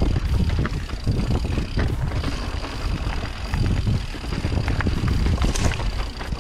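Orbea Oiz full-suspension mountain bike descending rough rocky singletrack: a continuous rumble of wind buffeting the microphone and tyres rolling over stone, broken by frequent sharp clicks and knocks from rocks and the rattling bike.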